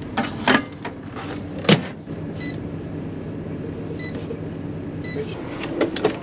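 Microwave oven door shut with a sharp clunk, then three short electronic beeps as its keypad buttons are pressed, over a steady low hum. Clicks and knocks near the end as a fold-down table is handled.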